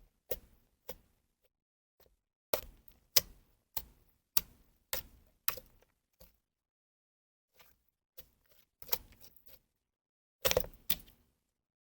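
Slime being pressed and worked by hand, giving a string of sharp, irregular clicks and pops, with a short pause in the middle.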